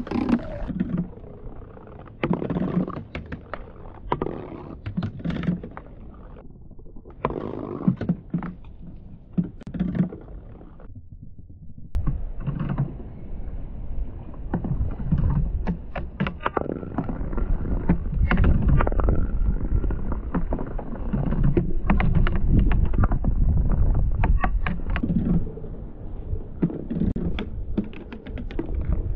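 Marbles rolling down homemade marble-run tracks: a continuous rolling rumble full of quick clicks and knocks as they strike the track edges and each other. The rumble drops briefly, then comes back louder and deeper about 12 seconds in, as the marbles run through a plastic bottle tunnel and along a wooden channel track.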